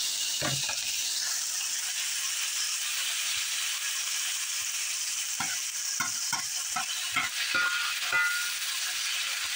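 Shrimp, onion and chicken sizzling in a hot cast iron skillet. There is a knock about half a second in, and from about halfway through a metal utensil scrapes and knocks against the skillet, about two or three strikes a second, as the food is stirred.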